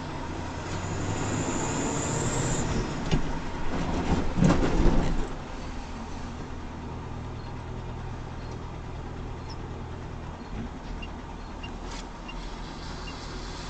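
A large vehicle's engine and tyre noise heard from its cab as it drives on a wet road, a steady low hum, with a loud noisy burst about four to five seconds in.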